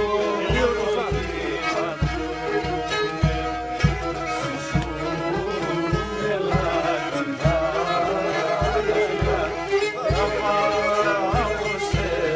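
Several Black Sea kemençes (the small three-stringed Pontic fiddle) playing a folk tune together, with a steady low thump keeping the beat about two or three times a second.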